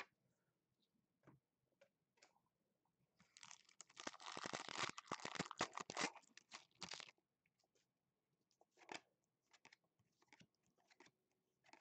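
Foil wrapper of a Panini Prestige football card pack torn open and crinkled for about four seconds, starting about three seconds in, then faint scattered clicks of the cards being handled.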